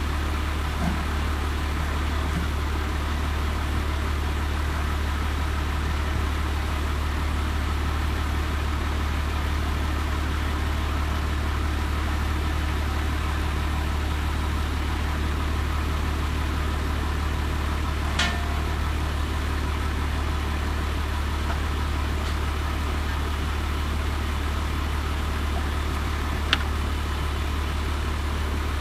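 Tow vehicle's engine idling, a low, even drone that holds steady throughout. Two brief sharp clicks come through, one about two-thirds of the way in and one near the end.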